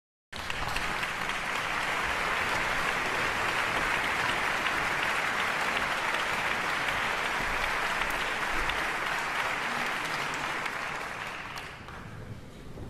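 Concert-hall audience applauding, greeting the soloist as he walks on stage. It begins abruptly, holds steady, and dies away near the end.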